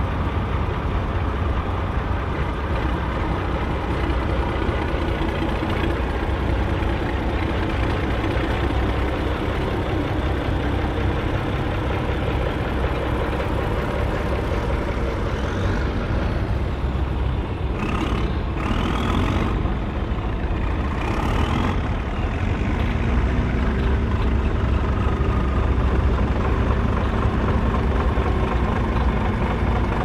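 Volvo BM farm tractor diesel engines running steadily, with a few rising and falling sweeps in pitch about the middle and the sound getting a little louder near the end.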